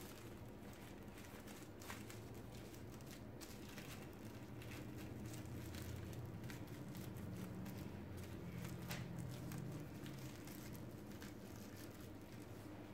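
Faint crinkling and scattered soft ticks of coat wraps being folded and handled around a Yorkshire terrier's hair, over a low steady hum.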